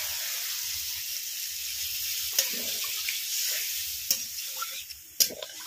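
Water poured into a hot karahi of fried papaya and spice paste, hissing and sizzling as it hits the hot oil. The sizzle dies down near the end, and a metal spatula knocks and scrapes against the pan a few times.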